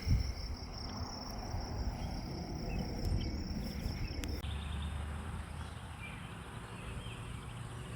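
Insects trilling on one steady high note over a low rumble of distant highway traffic and wind. The insect note cuts off abruptly a little past four seconds in, leaving a quieter outdoor background with the low rumble.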